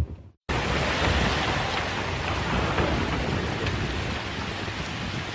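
Heavy rain falling steadily, with a low rumble of thunder underneath. It starts suddenly about half a second in.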